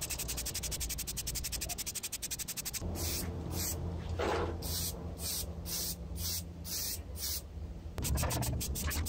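Aerosol spray-paint can: fast rattling of the mixing ball as the can is shaken, then about eight short hissing sprays starting about three seconds in, and rattling again near the end.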